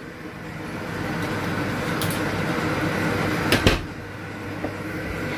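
Steady whir of a kitchen appliance fan, with a light click about two seconds in and a solid knock of a door shutting about three and a half seconds in, after which the whir is quieter.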